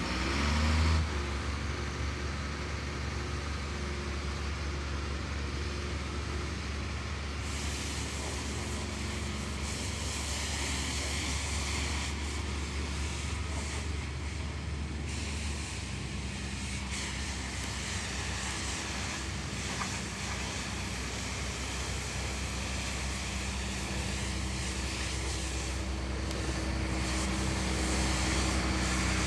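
1991 International asphalt patch truck's engine running as the truck drives. It revs up in the first second, then holds a steady drone. The engine note drops about halfway through, and it grows a little louder near the end as the truck comes back toward the listener.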